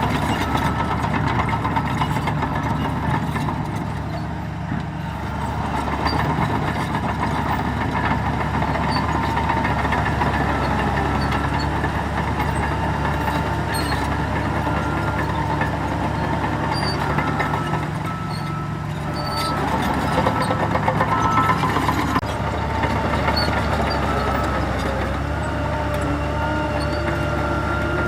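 Heavy diesel construction machinery running steadily, easing off briefly twice before picking up again.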